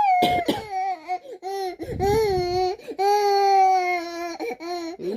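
Baby crying in several high-pitched wails, the longest held steady for over a second in the second half.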